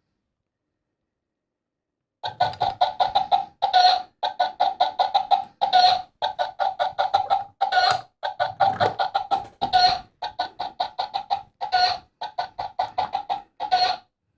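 Novelty egg-shaped kitchen timer going off at the end of its countdown, its alarm a hen clucking in quick runs. It starts about two seconds in, and each run ends on a longer, louder note, about every two seconds.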